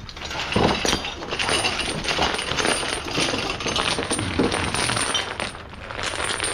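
Heavy steel tow chain being hauled out from under a pile, its links clinking and rattling against each other and the metal around it in a quick, continuous jangle.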